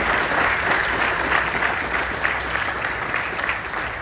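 Audience applauding, a dense clapping that starts to die down near the end.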